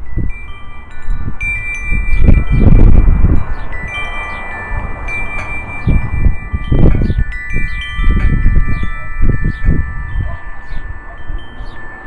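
Metal-tube wind chime ringing in the breeze, several clear tones struck again and again and overlapping as they ring on. Gusts of wind rumble on the microphone underneath.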